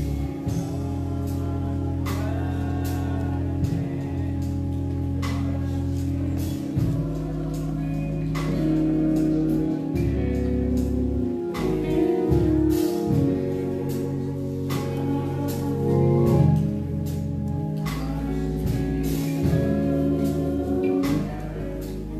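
Gospel song with singing over held low instrumental notes, and sharp percussive hits scattered through it.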